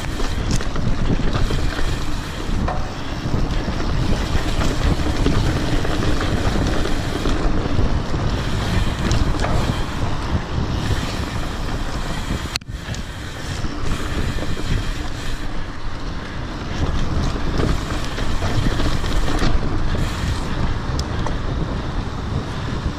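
Wind buffeting the microphone of a handlebar-mounted camera on a mountain bike riding fast down a dirt singletrack, over a steady rumble and rattle of tyres and bike on the rough trail. The noise drops out for an instant about halfway through.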